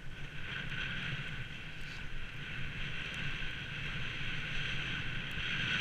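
Snowboard sliding downhill through soft snow, a steady hiss of the board on the snow mixed with wind rushing over the microphone.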